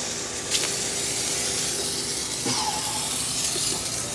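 Aerosol can of Easy-Off oven cleaner spraying in one long, steady hiss that starts about half a second in.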